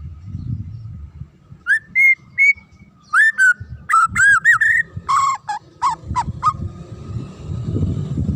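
White-rumped shama singing: a run of loud, clear whistled phrases of rising and falling notes, some repeated in quick succession, starting about two seconds in and stopping near six and a half seconds. A low rumble runs underneath and grows louder near the end.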